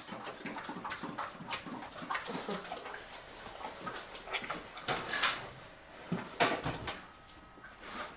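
Grizzly bear eating noisily from a foil pan: wet smacking, chewing and slurping in irregular bursts, with a few louder smacks past the middle.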